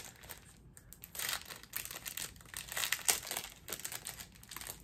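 Packaging crinkling and rustling in the hands as a small package is handled, in irregular crackles that start about a second in and are loudest a little after the middle.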